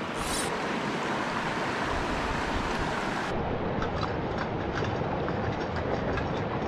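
Shallow, rocky mountain creek rushing steadily over stones and riffles.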